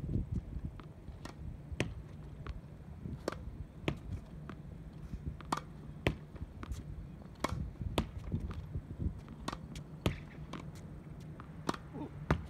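Tennis ball hit repeatedly against a practice backboard: sharp pops of the racket striking the ball and the ball hitting the wall and the hard court, often in pairs about every two seconds.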